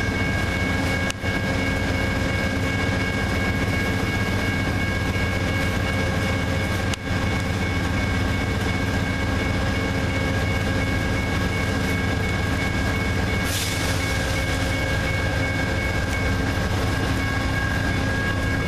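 Amtrak GE Genesis diesel locomotive running at a station: a steady engine drone with constant high whine tones, and a short burst of hiss about three-quarters of the way through.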